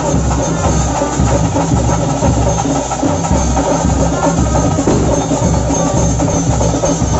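Drum-led ritual music of a Bhuta Kola (daiva kola) performance: drums beat a steady, driving rhythm, with other instruments playing over it.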